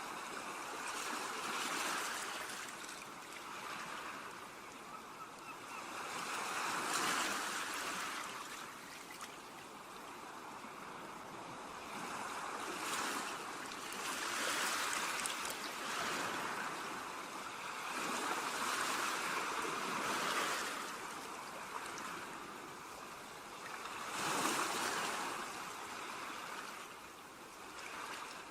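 Ocean waves breaking and washing up a beach, the surf swelling and fading every few seconds.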